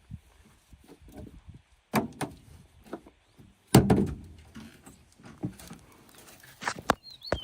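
Irregular knocks and thuds with quiet gaps between them, the loudest about four seconds in, and a short bird chirp near the end.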